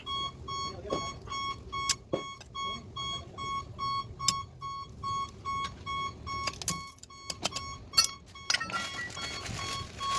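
Electronic warning beeper sounding rapidly and steadily, about two to three beeps a second, with occasional metallic clicks and knocks from tools.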